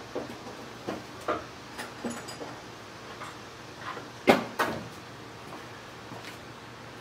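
A 5C collet block and other shop tooling being fetched and handled: scattered light knocks and clunks, with two sharper knocks close together about four and a half seconds in.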